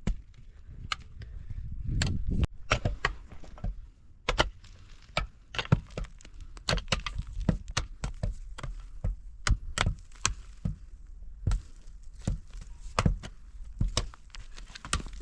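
Repeated sharp strikes on wood, like chopping, coming irregularly at about two or three a second.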